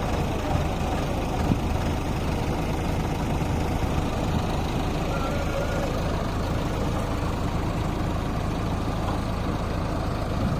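Heavy diesel engine running steadily at low revs.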